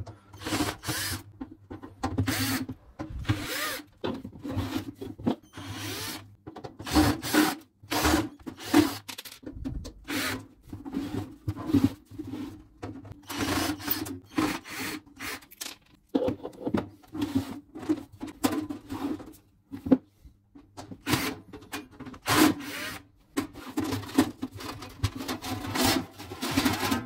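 Cordless drill-driver running in repeated short bursts as it backs screws out of a Panasonic mini hi-fi system's cabinet, mixed with clicks, scrapes and rattles of screws and casing being handled. Near the end the cabinet cover is pulled loose by hand.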